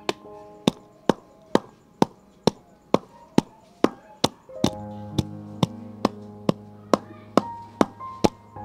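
Wooden pestle pounding in a wooden mortar, a sharp knock about twice a second in a steady rhythm. Background music plays underneath and grows fuller about halfway through.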